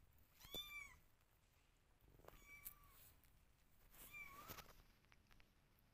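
Kitten meowing: three short, faint, high-pitched meows about two seconds apart.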